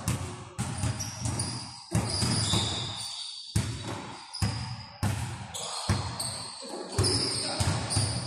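Basketball dribbled and bouncing on a hardwood gym court, a run of sharp thuds at an uneven pace of about one to two a second.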